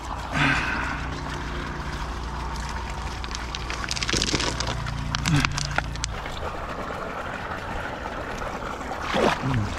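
Pond water sloshing and trickling as hands work among rocks in the shallows, with a few sharp knocks around the middle. Under it runs a steady low hum that stops about six seconds in.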